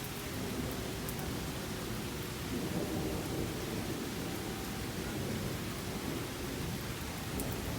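Rain falling steadily during a thunderstorm, with a low rumble of thunder underneath.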